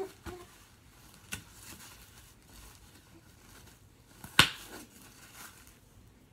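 Soft rustling and crinkling of a disposable diaper and baby wipes being handled during a diaper change, with a small click about a second in and a sharp, louder click about four seconds in.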